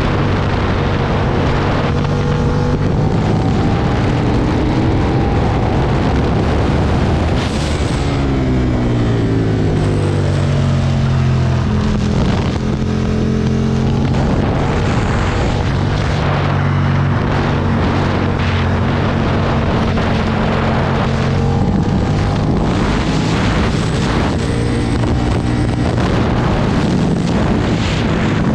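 2009 Aprilia Tuono's V-twin engine pulling hard on track, its pitch climbing and falling away several times as the rider shifts and brakes, over steady wind rush.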